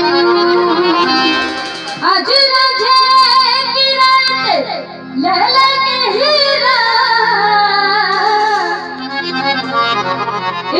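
A girl singing a Punjabi song into a microphone over a PA, holding long notes with quick wavering ornaments and sliding up into phrases, over instrumental backing.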